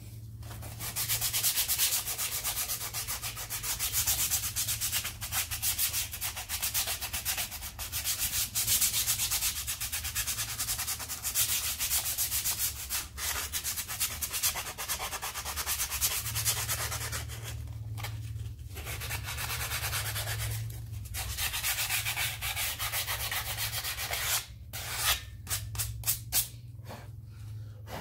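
New Land Rover Defender handbrake shoe linings being roughed up by hand with 150-grit abrasive cloth: fast back-and-forth rubbing strokes that pause briefly a few times, ending in a few slower single strokes. The scuffing is done so the new shoes bed in and grip.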